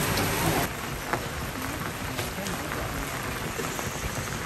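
Heavy rain falling on a flooded tiled walkway: a steady hiss of rain with scattered individual drop splashes, dropping a little in level just under a second in.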